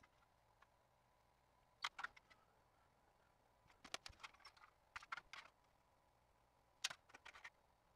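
Tin snips cutting across a corner of a thin sheet-metal blank: faint, crisp snip-clicks in four short clusters, about one to two seconds apart.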